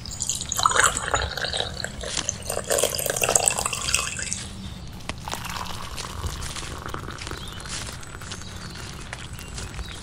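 Water poured from a steel kettle into a camping mug: a loud splashing pour for the first few seconds, then a fainter steady trickle.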